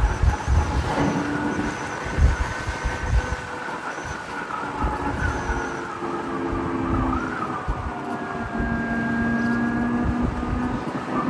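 Electric motorcycle on the move: the motor's whine sits at a few steady pitches that drift slightly with speed, under gusty wind noise on the microphone.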